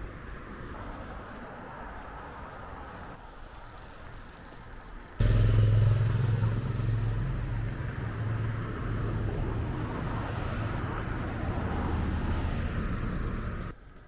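Road traffic: a faint steady background for the first five seconds, then a much louder, steady low engine hum that starts abruptly about five seconds in and cuts off just before the end.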